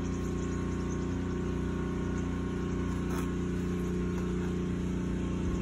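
A steady, unchanging low mechanical hum made of several stacked tones, with a faint tick about three seconds in.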